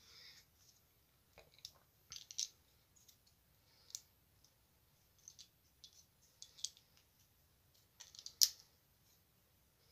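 Faint, scattered light clicks and ticks, now and then two or three close together, with the sharpest one about eight and a half seconds in.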